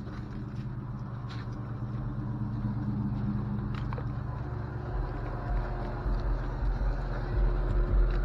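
An engine running steadily with a low hum, its deep rumble growing louder about halfway through.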